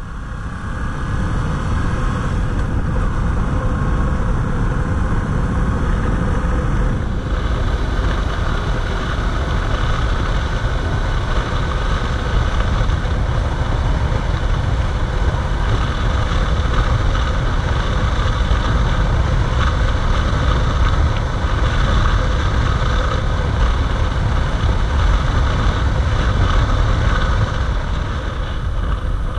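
Yamaha MT-07 motorcycle on the move: its parallel-twin engine running under a heavy, steady rush of riding wind on the camera microphone. The sound builds up about a second in as the bike gets under way, then holds steady.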